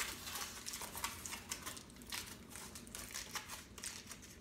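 Aluminium foil crinkling in quick, irregular crackles as it is peeled off a slab of chilled fudge.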